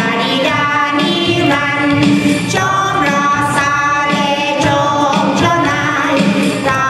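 A group of women singing a Lao-language Christian worship song together, with long held notes.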